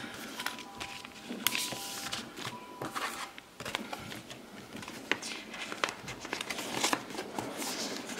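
Clear plastic binder pocket pages crinkling and rustling as photocards are slid in and out, with irregular small clicks and taps.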